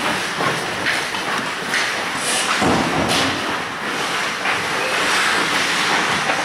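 Ice hockey play: skate blades scraping and carving across the ice in a continuous hiss, with sticks and puck clacking and a heavier knock about two and a half seconds in.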